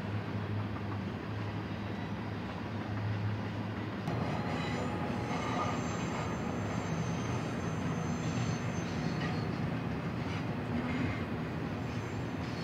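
Double-stack intermodal freight trains rolling by with a steady low rumble of cars on the rails. About four seconds in the sound changes to a broader, more open rumble, with a faint high squeal of wheels on the curves.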